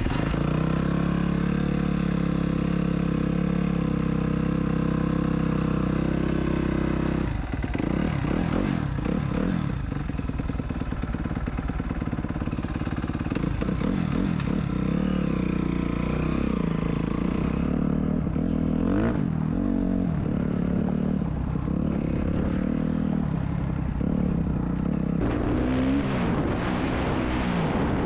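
Can-Am Maverick X3's turbocharged three-cylinder engine running steadily for about seven seconds, then revving up and down repeatedly as it is driven.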